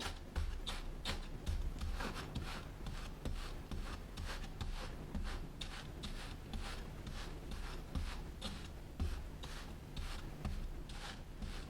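Kinetic sand being worked, giving a dry, crumbly rubbing sound in short repeated strokes, about two to three a second.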